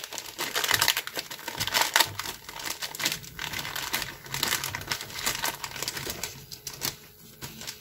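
Thin clear plastic bag crinkling and rustling in the hands as it is opened and rubber model-car tyres are pulled out of it: irregular crackles, busiest at first and thinning toward the end.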